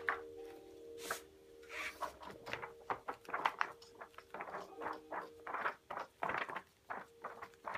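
Pages of a thick paperback book being turned by hand one after another: a quick run of papery flaps and rustles, starting about a second in.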